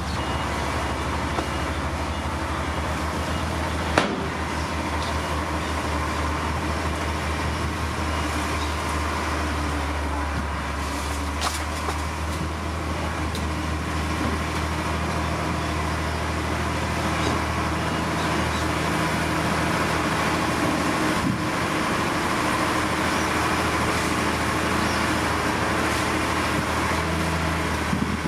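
Heavy earthmoving machinery's diesel engine running steadily with a deep, even hum, with a single sharp knock about four seconds in.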